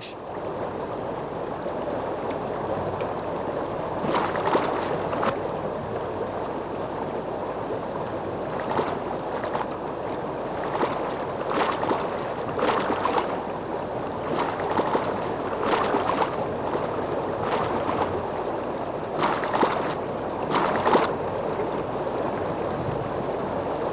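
River water running steadily, with short splashes in the water every second or two from about four seconds in.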